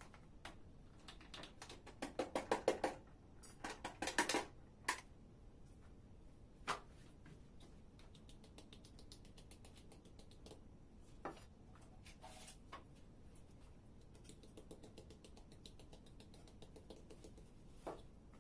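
An orange plastic hand sieve being knocked and shaken to sift flour onto a wooden table. There is a quick series of sharp taps about two to four seconds in, then light, fast ticking from the sieve as it is shaken for many seconds.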